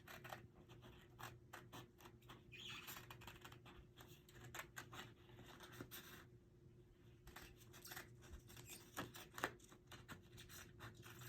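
Faint, irregular snips and scratchy clicks of scissors cutting through thin photo-paper cardstock, with the paper rustling as it is turned, over a low steady hum.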